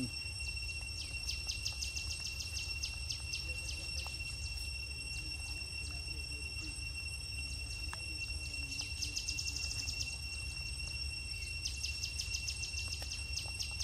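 Evening insects: a steady high-pitched drone with a rapid pulsing chirp, several pulses a second, that breaks off for a few seconds mid-way, returns briefly as a faster trill, and resumes near the end, over a low steady background rumble.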